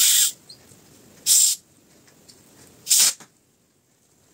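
Gas hissing out in three short bursts as the screw cap of a plastic bottle of home-fermented kvass is eased open. The hiss is the release of carbonation built up by yeast fermentation.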